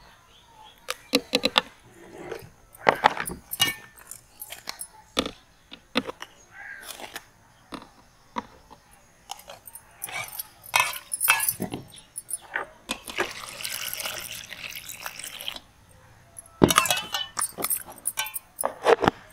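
Spoon and steel bowls clinking and knocking as ingredients are scooped into a plastic blender jar, with a few seconds of scraping hiss a little past the middle.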